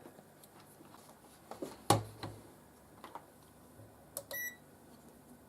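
Several small clicks and knocks from the test leads and capacitor being handled on the bench, the loudest about two seconds in. A short, high electronic beep from a meter comes near the end.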